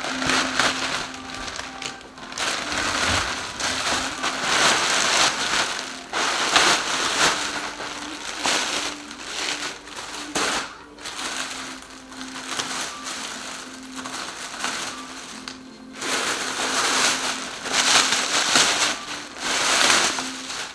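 Parcel packaging being unwrapped by hand, crinkling and rustling in repeated bursts as the parcel is opened.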